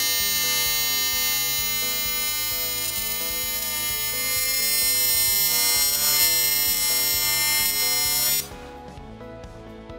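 AC TIG welding arc on aluminum tube: a steady electric buzz with many overtones while filler rod is fed into the puddle, getting a little louder about halfway, then cutting off abruptly about eight and a half seconds in.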